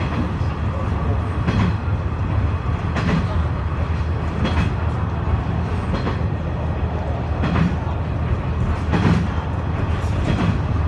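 Cabin sound of a KiHa 126 series diesel railcar running at speed: a steady low rumble from the engine and running gear, with the wheels knocking over rail joints about every one and a half seconds.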